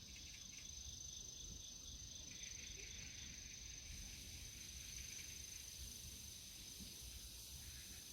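Insects, crickets or similar, chirping faintly: a steady high trill with a rhythmic chirp of several pulses a second that stops a few seconds in.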